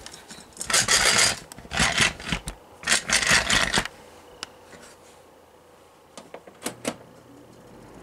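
Plastic clattering and scraping as the Hunter 32500 humidifier is handled on a wooden workbench: three bursts in the first four seconds. A few sharp clicks follow, then near the end the humidifier's fan starts up and its steady air noise begins to rise.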